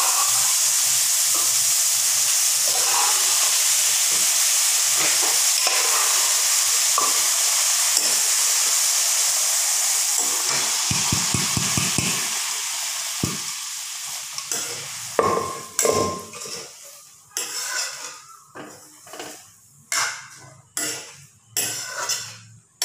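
Boiled peas and potatoes sizzling loudly as they go into hot tomato masala in a karahi, the sizzle dying away after about 14 seconds. After that, a metal spoon scrapes and knocks against the pan in short irregular strokes as the mixture is stirred.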